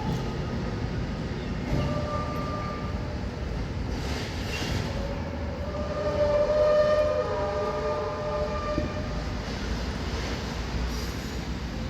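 Intermodal freight train's wagons rolling past with a steady low rumble, their wheels squealing on the curved track through the station. There is a short squeal about two seconds in, then a louder squeal of several tones at once from about halfway, lasting a few seconds.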